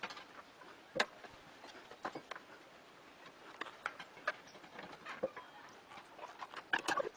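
Faint, scattered short clicks and taps, a cluster of them near the end, over a low hiss.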